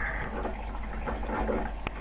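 Aquarium filter running: water trickling and bubbling, over a low steady hum.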